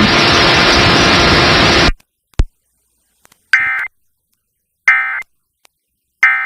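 A loud steady hiss of radio static cuts off about two seconds in. After a click come three short raspy data bursts about a second apart: the Emergency Alert System end-of-message tones that close a Required Monthly Test.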